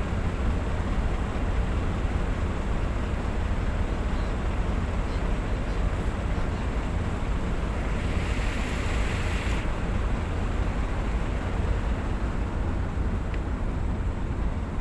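A large engine running steadily with a deep, low rumble. About eight seconds in, a short hiss sounds for about a second and a half.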